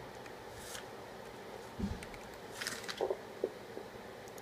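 A few short clicks and taps of keys being typed on a computer keyboard, bunched together in the middle, with a soft low thump about two seconds in, over a faint steady background hum.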